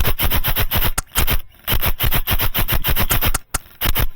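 Airsoft electric gun (AEG) firing on full auto in several rapid strings of shots, about eight to ten a second, with short breaks between bursts.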